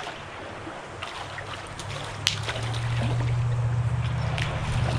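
Shallow stream water rippling and splashing as a hooked brown trout thrashes at the surface on a tenkara line, with scattered sharp splash clicks. A steady low drone comes in about two seconds in and grows louder.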